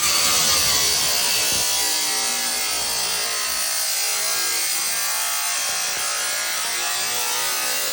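A Makita 7-inch angle grinder running under load, its disc grinding steadily. The motor's pitch falls during the first second or so as the disc bites in, then holds.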